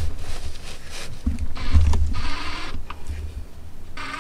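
Cordless drill running for a second or so in the middle, with knocks and handling bumps around it.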